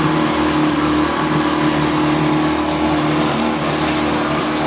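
Motorboat engine running at a steady cruising speed, an even drone with no change in pitch, over the rush of water past the hull.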